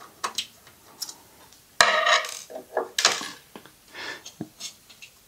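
Screw removal and a small metal plate being worked loose on a Kenwood KX-54 cassette deck: light metallic clicks and scrapes from the screwdriver and screws, with louder clattering rattles of metal parts about two and three seconds in.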